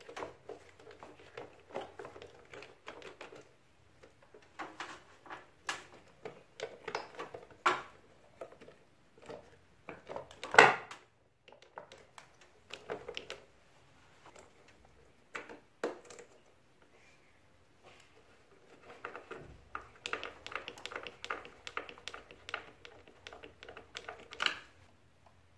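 Scattered clicks, taps and knocks of the air-conditioner indoor unit's control box and its plastic fittings being handled and pressed into place, with one louder knock about ten seconds in and a run of quick small clicks near the end.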